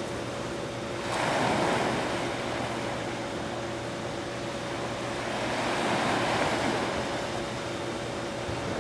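Small waves washing onto a sandy beach, swelling about a second in and again around six seconds, over a faint steady hum.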